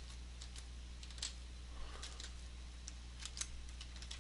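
Computer keyboard being typed on: scattered, irregular single key clicks a few times a second as a name is keyed in, over a steady low hum.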